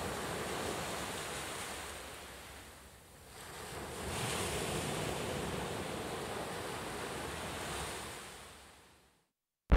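Sea waves washing on a beach: a steady wash that ebbs about three seconds in, swells again with a fresh wave, then fades away near the end.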